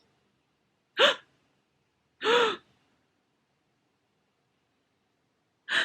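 A woman gasping dramatically, two short, sudden intakes of breath: one about a second in and another near the end.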